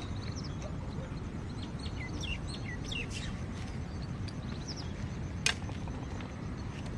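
Small birds chirping in short, quick calls over a steady low background rumble. A single sharp click about five and a half seconds in.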